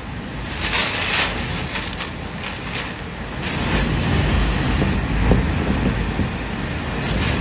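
Typhoon wind blowing in strong gusts with driving rain, the wind buffeting the microphone as a low rumble that swells about halfway through.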